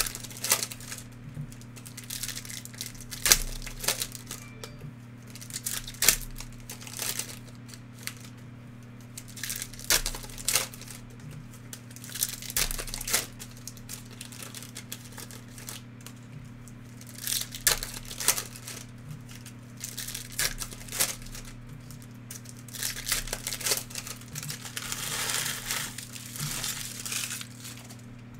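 Plastic trading-card pack wrappers crinkling and tearing as they are ripped open by hand, in irregular bursts with short pauses between.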